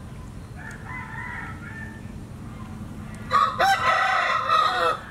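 A rooster crowing: a faint crow about a second in, then a loud, drawn-out crow lasting about a second and a half near the end.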